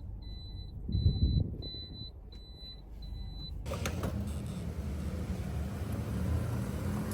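An electronic beeper sounds a run of about six short, high beeps, evenly spaced a little over half a second apart, over a low rumble. The beeping stops about halfway through, and a steady low hum and hiss carries on.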